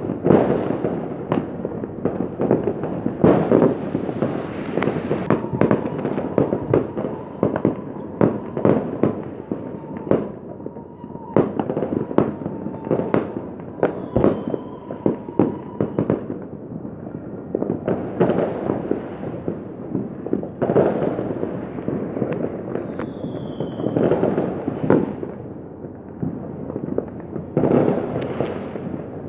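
Many fireworks and firecrackers going off at once: a continuous din of crackling and bangs, with louder blasts every few seconds.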